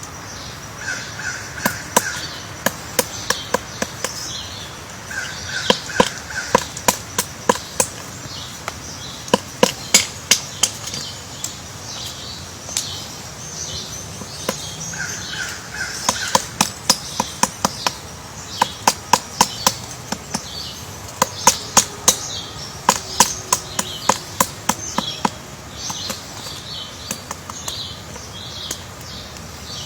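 A woodpecker pecking at wood: sharp, irregular taps, often in quick runs of several, with other birds chirping. A short three-note call comes a few times.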